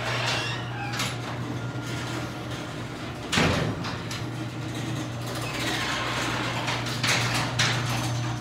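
Chamberlain chain-drive garage door opener lowering a sectional garage door: a steady motor hum with the chain rattling along the rail, which is noisier than it should be because the chain rubs on a slightly bowed rail. There is a loud clack about three and a half seconds in and more clatter near the end as the door comes down.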